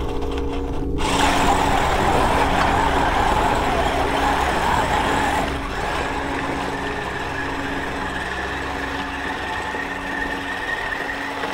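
Dubbed-in sound effect of a big mud-bogging truck engine running hard under load. A loud rushing noise starts about a second in and lasts until about halfway, and after it a steady high whine sits over the engine.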